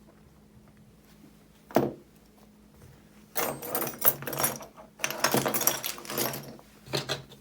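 Small tools and parts being handled on a workbench while pentalobe screws go back into a phone: one sharp tap about two seconds in, then a few seconds of clattering and rustling.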